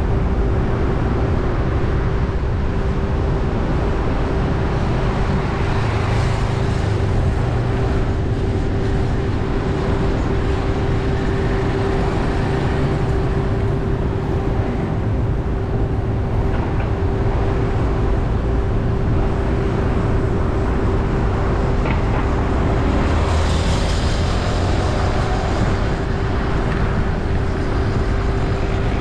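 Car driving in city traffic: steady engine and tyre rumble with a constant hum, and a brief louder hiss about three-quarters of the way through.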